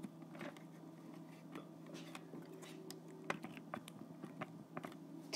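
Faint scattered clicks and taps of handling: a phone being fixed onto an RC car with electrical tape, over a low steady hum.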